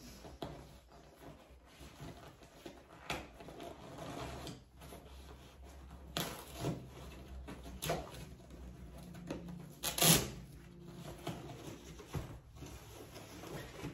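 Rustling and handling noises as a throw blanket is taken out of its packaging, with irregular crinkles and small knocks and a sharper, louder one about ten seconds in.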